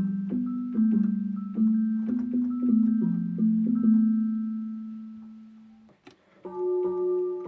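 Yamaha electronic keyboard playing a slow run of low, struck notes that ring on and overlap. The last note fades away over a couple of seconds; after a click, a new group of higher notes starts near the end.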